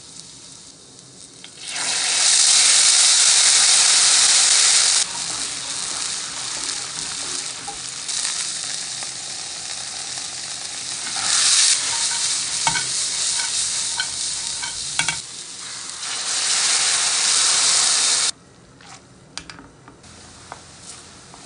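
Oil and lemon zest sizzling in a hot frying pan, surging several times into loud hissing as hot water goes into the hot oil, with light clicks as raw trofie pasta is tipped into the pan. The sizzle stops abruptly near the end, leaving a few faint clicks.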